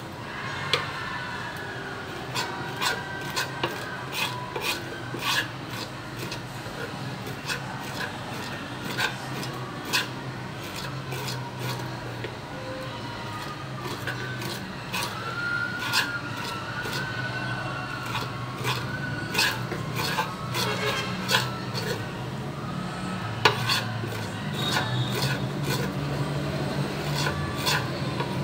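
Spoon scraping a hog intestine against a wooden cutting board in repeated irregular strokes, with sharp scrapes and taps of metal on wood, stripping the inner lining to make sausage casing.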